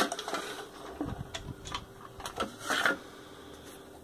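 Handling noise: scattered clicks, knocks and rustles, loudest at the very start and again about three seconds in, over a faint steady hum.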